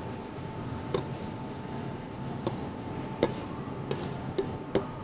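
Metal utensil scraping and tapping against a stainless steel mixing bowl as couscous is emptied onto a plate: scattered light clicks, about six, over a faint steady hum.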